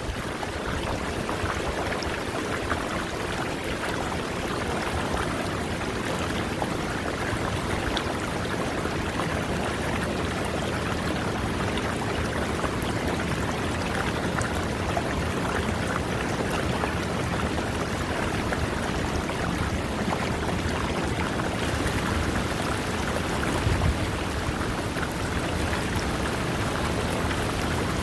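River water running over rocks: a steady, even rush of flowing water.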